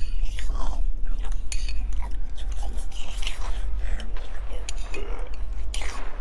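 Breakfast cereal being crunched and chewed from a bowl: a run of short, crisp crunches over a steady low hum.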